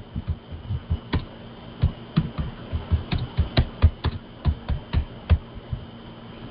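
Typing on a computer keyboard: irregular clicks, about four a second, that stop shortly before the end, over a faint steady hum from an open call microphone.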